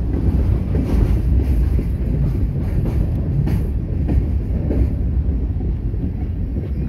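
Freight train's covered hopper cars rolling past on the rails: a steady low rumble with a few sharp wheel clicks, easing off as the last car goes by about five seconds in.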